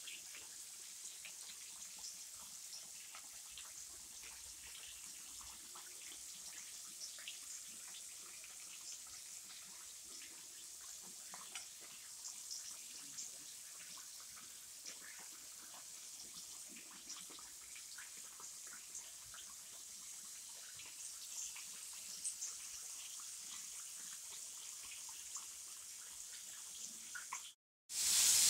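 Faint steady high hiss with scattered light crackles and ticks. Near the end it cuts out for a moment, followed by a short, loud rush of noise.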